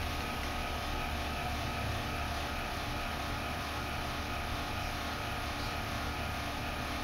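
Steady low hum with a faint hiss, with no distinct clicks or knocks.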